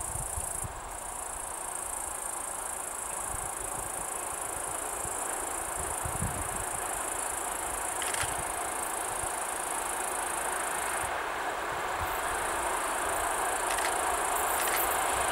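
Insects trilling steadily and high while a ChS4t electric locomotive hauling an express passenger train approaches from far off, its rumble on the rails growing slowly louder.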